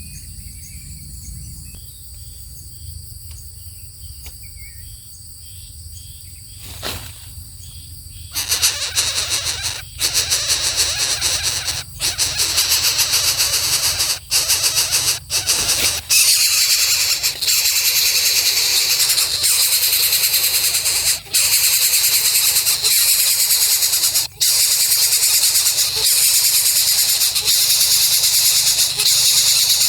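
Coucal chick giving a loud, harsh, hissing squeal that starts about eight seconds in and then runs on nearly without a break, with a few short pauses. Before it come faint insect chirps over a low hum.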